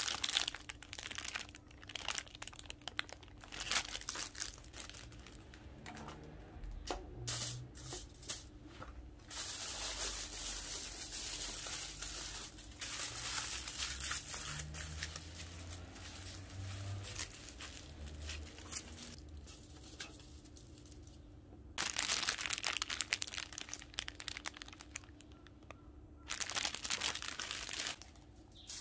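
Plastic bun wrappers and aluminium foil crinkling and tearing as hands unwrap buns and wrap them in foil. It comes in irregular bursts of crackly rustling, loudest about ten seconds in and again about twenty-two seconds in.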